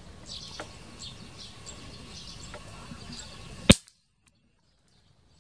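Faint bird chirps outdoors, then about three and a half seconds in a single sharp shot from an air rifle fired at a dove on a power line.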